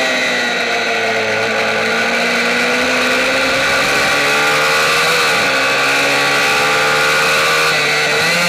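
A MiniGP racing motorcycle's engine heard onboard at racing speed, its pitch sagging and climbing as the rider works the throttle through the corners. There is a quick dip and recovery about five seconds in, with rushing wind on the fairing-mounted microphone.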